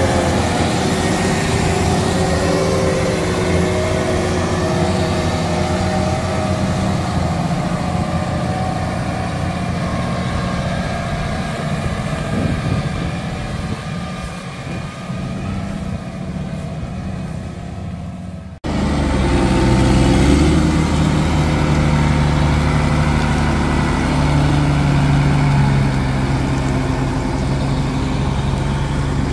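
Tractor diesel engines, a Case IH Magnum 315 and a New Holland TM190, running hard under load as the Case tows the stuck New Holland and its loaded grain trailer. The sound changes abruptly about two-thirds of the way through to a louder, steadier low engine note.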